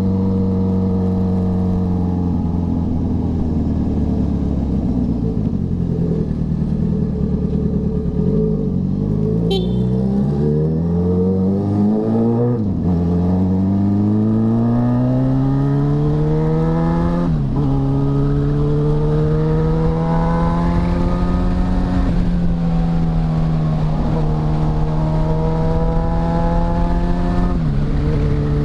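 Motorcycle engine under way, its note easing down and then climbing repeatedly through the gears. The pitch drops sharply at each upshift: a little before halfway, about two-thirds in, and near the end.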